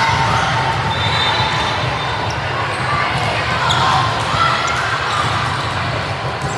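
Indoor gym sound during a club volleyball match: voices and chatter from players and spectators over a steady low hum, with a few sharp knocks of the ball being hit or bouncing.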